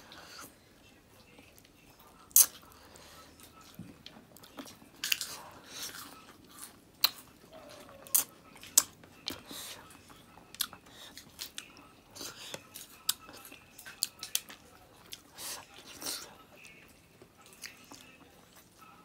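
Close-up eating sounds of a person eating by hand: wet chewing with irregular sharp lip smacks.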